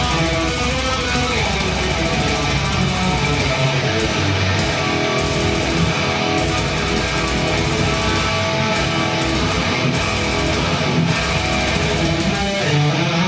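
Electric guitar played through the Ignite Amps Emissary amp simulation in STL AmpHub, a continuous guitar riff.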